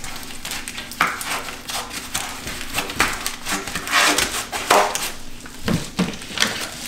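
Bubble wrap and plastic packing crinkling and rustling as they are pulled off a metal tube, in irregular crackles.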